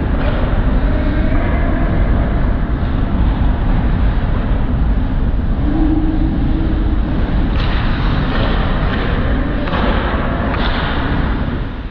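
Steady low rumble of ice rink ambience, muffled through a GoPro camera housing, with a few sharp knocks in the last few seconds as play comes in toward the net.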